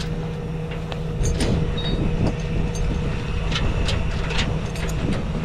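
Tow truck engine running at a steady idle, with scattered sharp clicks and knocks over it.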